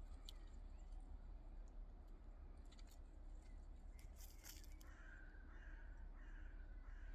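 Faint bird calls over a low, steady outdoor rumble, with a few scattered sharp clicks and a brief hiss midway.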